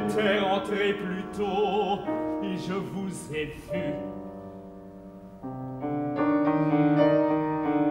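Grand piano playing sustained chords that ring and fade, with a new, louder chord struck near the middle. In the first two seconds a singer's voice holds notes with a wide vibrato over the piano.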